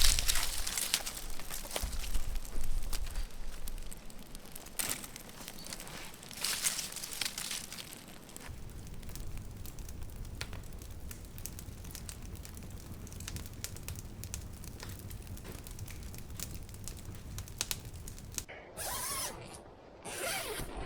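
Gusty wind buffeting the microphone, loudest in the first few seconds and then easing, with crinkling, rustling and scattered sharp clicks. Near the end the background drops away abruptly, leaving two short hissing rushes.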